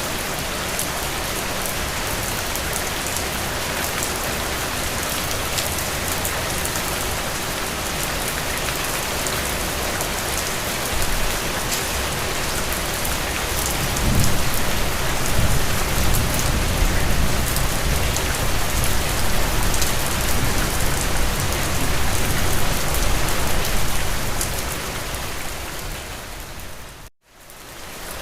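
Steady rain falling, with fine drop ticks throughout. A low rumble swells in about halfway through and eases off later, then the sound cuts out for a moment near the end and comes back.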